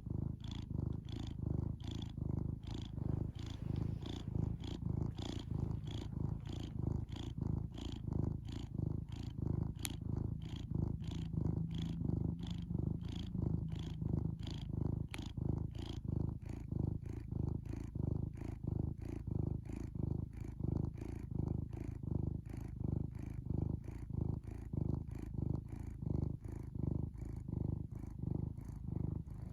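Domestic cat purring close up, a continuous low-pitched, rhythmic rumbling that pulses evenly.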